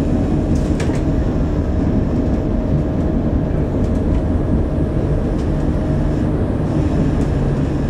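Cabin of a moving East Midlands Railway diesel train: a steady rumble of wheels on the rails with an even engine drone underneath, and a short click about a second in.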